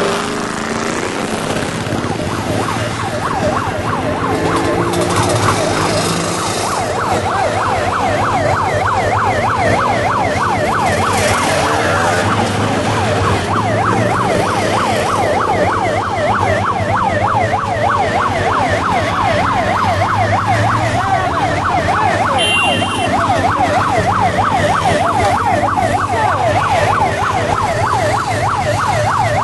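Electronic siren in a fast yelp, about three rising-and-falling sweeps a second, building from about five seconds in, over the running engines of vintage motorcycles and scooters passing by.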